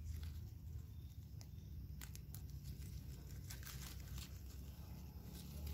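Faint rustling of winged bean leaves and vines being handled, with a few light crackles in the middle and a low steady rumble underneath.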